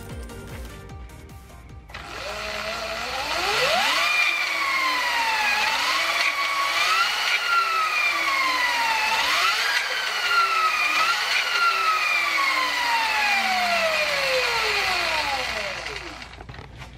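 Sur Ron Light Bee electric motor whining as it spins the rear wheel in the air through a DB Offroad 219 primary chain drive. It winds up about two seconds in, rises and dips with four or five throttle blips, then glides down as the wheel coasts to a stop near the end. The chain has not yet been tightened, and the drive is a little louder than the stock belt.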